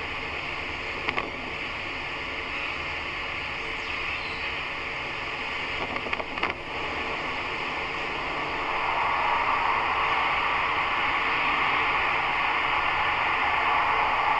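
Steady hiss of radio static from a ghost-hunting spirit box left running, with a couple of short clicks about a second in and around six seconds; the static grows a little louder after about eight seconds.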